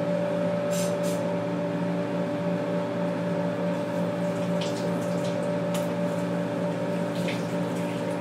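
Coolant pump on a Tormach 1100MX CNC mill running with a steady hum, feeding coolant through the washdown hose and nozzle with a hiss of spraying liquid. A few faint ticks come through.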